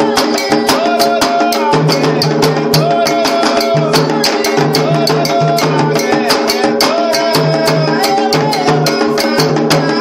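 Recorded Candomblé song: atabaque hand drums and percussion playing a fast, steady beat, with a wavering sung line above.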